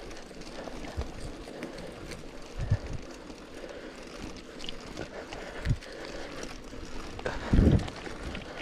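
Mountain bike ridden over a forest trail: steady tyre and rolling noise, with several low thumps from bumps, the loudest about seven and a half seconds in.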